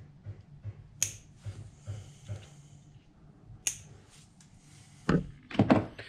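Small clicks and plastic rustling of hands fitting and tightening cable ties on an outboard engine's wiring harness, with two sharp clicks about one and three and a half seconds in. Near the end, a few loud knocks and rubbing right at the microphone.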